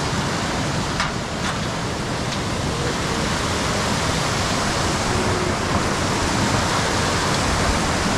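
Fast-flowing mountain stream rushing steadily.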